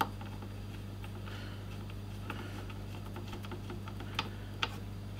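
Faint, scattered small clicks of a screwdriver and screws against the metal casing of a 2.5-inch laptop hard drive as screws are driven in, with two sharper clicks near the end, over a steady low hum.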